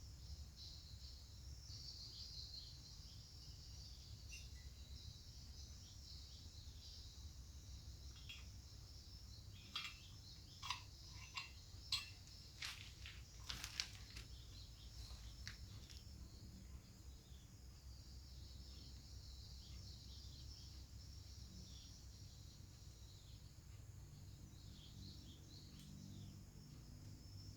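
Faint, steady high-pitched chirping of insects and birds in the background, with a run of about eight sharp clicks and taps about halfway through.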